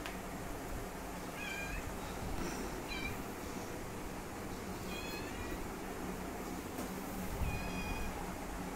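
Kitten meowing: four short, high-pitched meows a couple of seconds apart.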